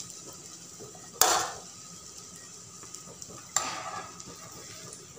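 Medu vada sizzling in hot oil in a non-stick pan. A metal utensil knocks sharply against the pan twice, about a second in and again after three and a half seconds.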